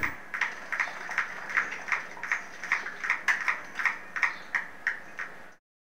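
Rapid sharp ticking, about three clicks a second, from a powered amplifier board where sparks arc from under a failed capacitor. Each click is a small discharge through a partial short between the PCB's layers. The ticking cuts off a little before the end.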